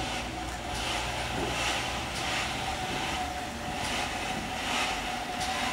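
GWR 4200 class 2-8-0 tank engine No 4247, a two-cylinder steam locomotive, moving slowly with soft exhaust chuffs a little under one a second.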